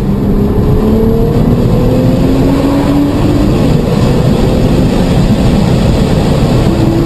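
Car engine accelerating hard, its pitch climbing steadily under a loud, rushing noise.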